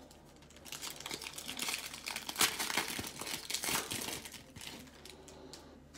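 Foil wrapper of a Panini Prizm baseball card pack crinkling and tearing as it is opened by hand, starting about a second in and dying down near the end.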